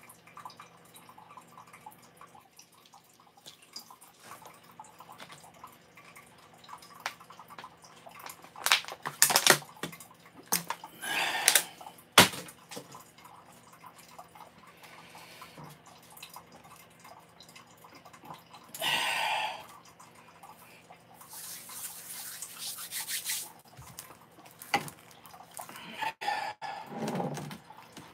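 Coffee maker brewing, with water dripping and hissing. Over it come several sharp knocks and clinks of kitchen things being handled, loudest about nine to twelve seconds in.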